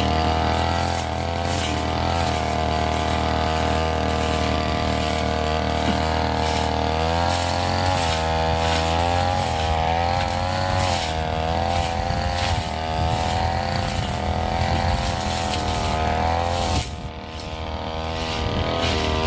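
Petrol brush cutter engine running at high throttle while cutting through scrub, its pitch wavering as the load changes. About seventeen seconds in the engine briefly drops off, then speeds up again near the end.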